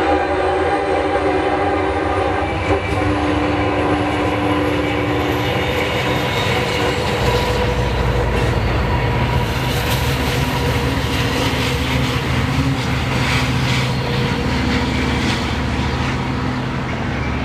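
Long Island Rail Road DM30AC diesel locomotive's K5L horn ending a wheezy chord in the first seconds. The locomotive then passes with a heavy diesel rumble, wheels clacking over rail joints, and a faint high whine that rises slowly.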